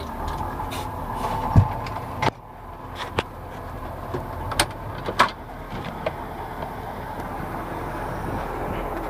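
KhTZ-17221 tractor running, heard from the cab. About two seconds in there is a sharp click and the noise drops, followed by several short knocks and clunks of the cab door and grab rail as someone climbs out.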